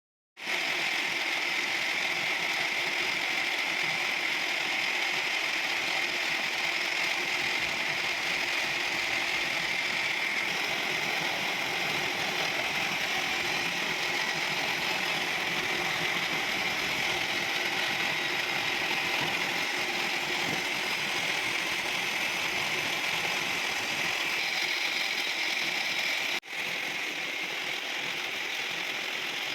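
Machine tool running steadily while machining a worm shaft, a continuous mechanical whirr and hiss. It cuts out for an instant about 26 seconds in and carries on slightly quieter.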